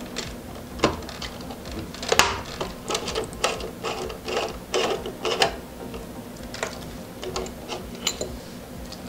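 Phillips screwdriver turning out a small screw that holds a metal M.2 heatsink plate on a motherboard: a run of irregular sharp metal clicks and ticks, thickest between about two and five and a half seconds in, with the loudest click about two seconds in.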